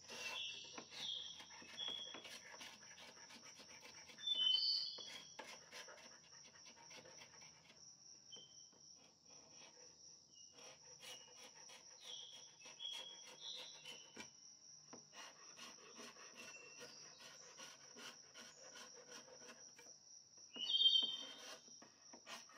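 Hand paint scraper scraping old green paint off a wooden table in many faint short strokes. Over it, a steady faint high whine and several short high chirps, the loudest about four seconds in and again near the end.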